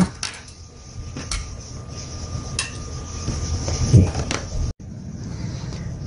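A few light clicks and knocks, about a second apart, from paint tubes and a palette knife being handled on the palette and table, over a steady hiss.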